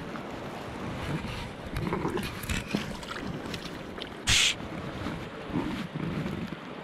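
Shallow river running over stones, with small splashes and knocks from the fish and landing net being handled at the water's edge. A short, loud burst of noise comes a little after four seconds in.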